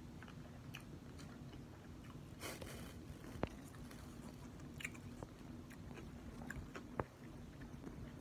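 Quiet closed-mouth chewing of a mouthful of sushi, with scattered faint clicks; two sharper clicks come about three and a half and seven seconds in.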